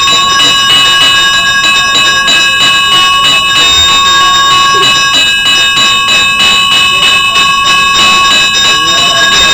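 Temple bell rung rapidly and steadily, its bright metallic ringing sustained by a quick, even train of strokes.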